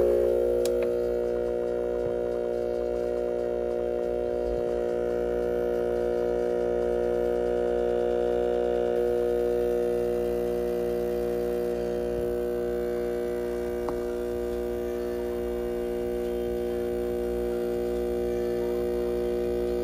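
Espresso machine's pump running with a steady drone during a shot extraction. Its pitch shifts slightly about nine seconds in.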